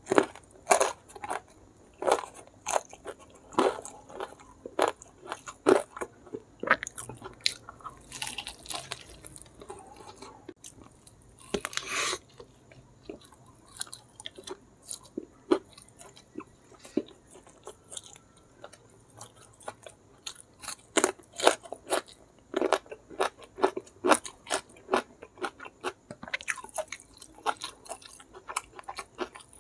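Close-miked chewing and crunching of crispy smashed fried chicken (ayam geprek) eaten by hand, a rapid run of sharp crunchy bites. The crunching comes in dense runs at the start and again in the last third, with a sparser stretch between and two longer hissing sounds about a third of the way in.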